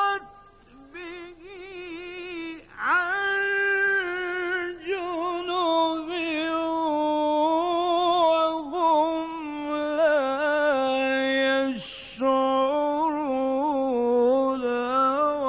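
A man's voice chanting Quran recitation in the melismatic mujawwad style: long ornamented melodic lines drawn out on held vowels, the pitch wavering and turning, with a short break about twelve seconds in before the chant picks up again.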